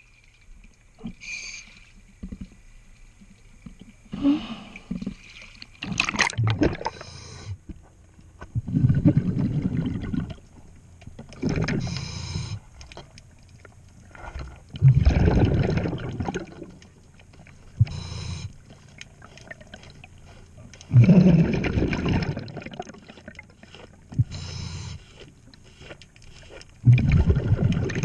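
Underwater, a scuba diver breathing through a regulator: a short hissing inhale, then a longer low rumble of exhaled bubbles, about one breath every six seconds.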